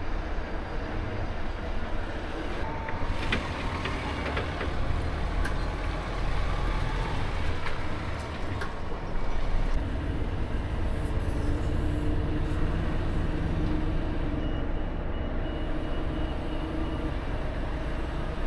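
Volvo FH 460 truck's diesel engine running steadily, heard from inside the cab, with a few clicks and knocks about three to five seconds in. About three-quarters of the way through comes a quick row of short high beeps.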